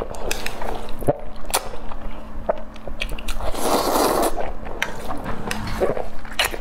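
Close-miked noodles being slurped into the mouth in one long, noisy slurp about halfway through, with wet chewing clicks and lip smacks before and after.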